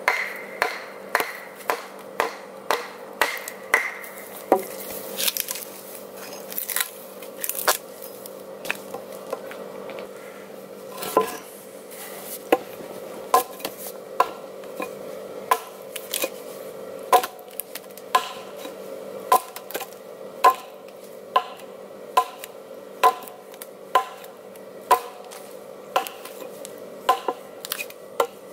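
Repeated sharp knocks of steel blades cutting into a red alder log: a hatchet struck with a wooden mallet, then an axe chopping. The blows come about one to two a second, the early ones with a brief metallic ring.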